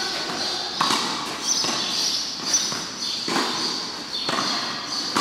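Tennis rally on a clay court: sharp racket strikes on the ball and ball bounces, about one each second, with footsteps shuffling on the clay.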